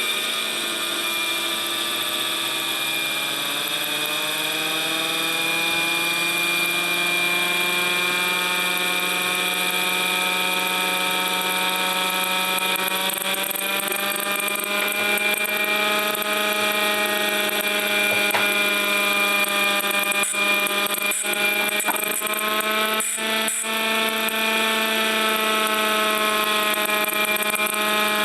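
MiniMite air raid siren running, its wailing tone climbing slowly through roughly the first half and then holding steady, over a constant high whine. Its aged, brittle plastic chopper has split where it fits the motor shaft.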